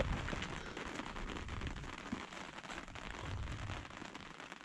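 Rain falling steadily on the fabric of a pop-up canopy overhead, a passing rain squall.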